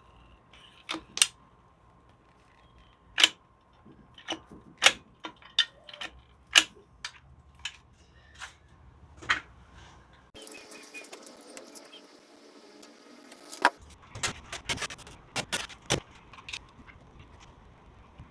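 Irregular sharp clicks and knocks, about fifteen in all, from hands working with tools and materials while gluing the seams of a styrofoam kayak. They come in a cluster near the end.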